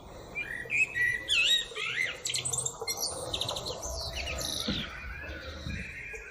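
A black songbird singing a varied song of whistled phrases and quick rattling trills. The loudest phrases come in the first two seconds, and the song grows softer toward the end.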